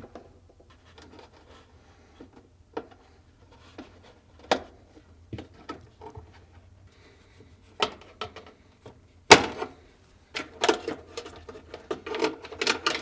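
Scattered clicks, taps and scrapes of a flat-blade screwdriver working a rubber grommet out of its plastic retaining slot by a refrigerator's freezer evaporator. There is a sharp knock about nine seconds in, and the clatter comes thicker near the end.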